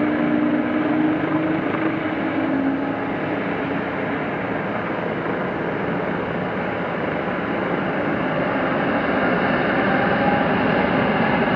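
Airbus A321neo's turbofan engines running as the airliner moves on the runway: a steady jet rumble and hiss that dips a little in the middle and builds again near the end.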